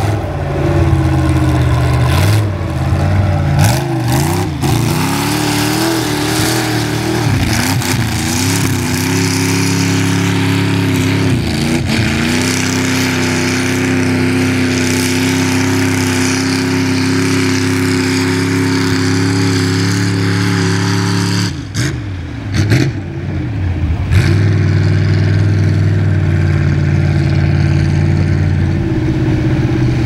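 Lifted Chevy mud truck's engine revving up and down, then held at steady high revs while its tractor tires spin and dig through mud. The engine drops off briefly about two-thirds of the way through, then runs hard again.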